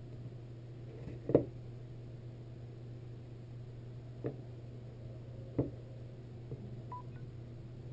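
A smartphone being set down and shifted on a wooden desktop: three light knocks, the first, about a second and a half in, the loudest, over a steady low hum.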